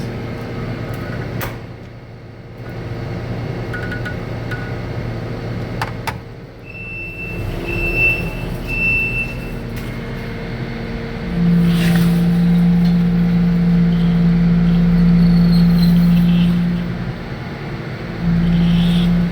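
Kubota SVL97 compact track loader's diesel engine running, with three short high beeps about 7 to 9 seconds in. At about 11 seconds a loud steady hydraulic hum comes in and holds for about five seconds, then returns briefly near the end, as the loader's hydraulic pin lock is engaged on the attachment hitch.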